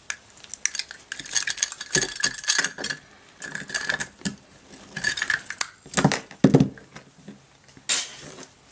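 Hand tools clinking, clicking and scraping against the plastic and metal parts of an inkjet printer's print head assembly as it is pried up, with a few short squeaks and some louder knocks near the end.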